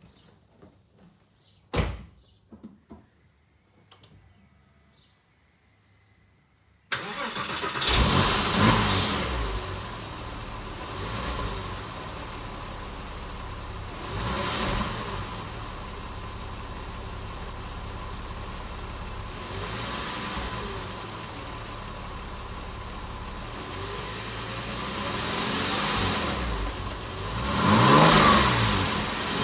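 A sharp knock and a few small clicks, then about seven seconds in the Porsche 996 Carrera 4S's flat-six fires up through its factory silencers, flares and settles to idle. Several short throttle blips follow, and a longer rev builds near the end.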